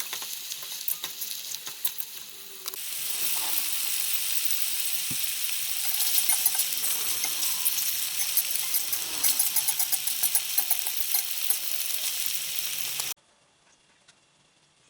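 Chicken patties frying in hot oil in a pan: a steady sizzle with many small crackles and pops, getting louder about three seconds in, then cutting off suddenly near the end.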